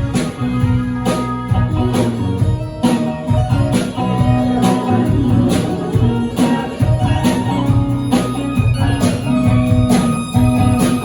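Band playing live: guitar over drums, with a steady beat of strokes about once a second.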